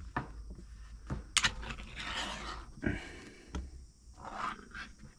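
Lid of a French combat-ration meal being peeled open by hand: scraping and crinkling with scattered sharp clicks, the loudest about one and a half seconds in.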